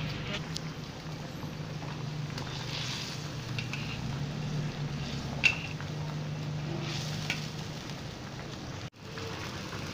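Chicken curry sauce boiling and bubbling in a wok while a metal spatula stirs it, with one sharp clink of the spatula against the wok about halfway through. A steady low hum runs underneath.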